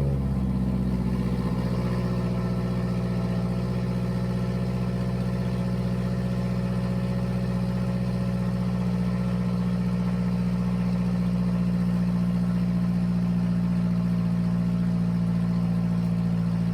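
Mazdaspeed3's turbocharged 2.3-litre four-cylinder idling steadily through a loud exhaust, just after being started. The car has an exhaust leak the owner is trying to find.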